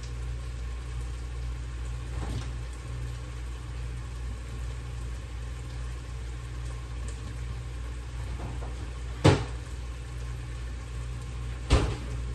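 Steady low kitchen hum with two sharp knocks, about two and a half seconds apart, the second near the end.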